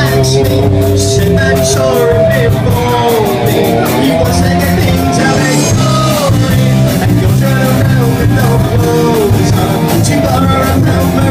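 Live rock band playing loud: electric guitars, bass guitar and a drum kit keep a steady driving beat, with a male lead singer singing into a microphone over them.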